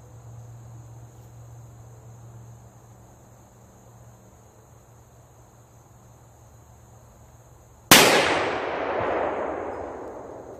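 A single shot from a .500 S&W Magnum revolver (Smith & Wesson 500 Performance Center) about eight seconds in. Its report rolls away in an echo that fades over two to three seconds. Crickets chirp steadily before the shot.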